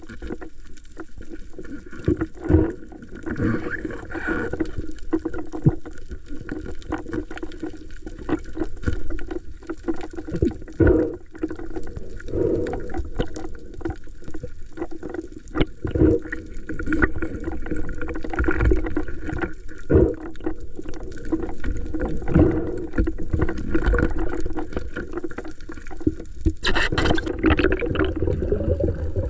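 Water sloshing and gurgling, with irregular knocks and a low steady hum underneath; a louder rush of noise comes near the end.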